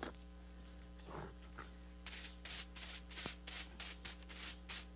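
A small straw whisk broom brushing dirt off a brick, dusting it clean so it will bond to the mortar: a quick run of short brushing strokes, about four a second, starting about two seconds in.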